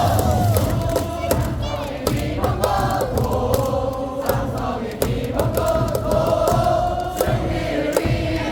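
Baseball stadium cheering-section crowd singing a cheer song in unison over amplified music, with regular sharp beats throughout.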